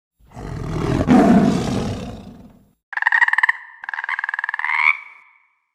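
A deep animal roar that swells and then fades, followed by a different high, rapidly quivering animal call in two parts, the second part rising slightly at the end.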